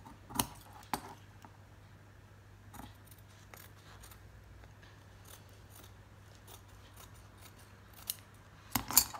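Dressmaking shears snipping through stiff canvas interfacing in a series of short cuts, with sharper snaps about half a second in and a cluster just before the end.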